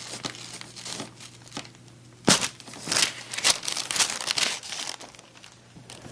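Neck joints popping during a chiropractic neck adjustment: one sharp crack about two seconds in, the loudest sound, with smaller clicks and a stretch of rustling and crinkling around it.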